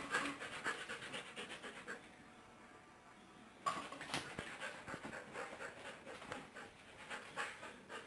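Siberian husky panting rapidly and rhythmically with its mouth open. The panting stops for about a second and a half about two seconds in, then starts again suddenly just under four seconds in.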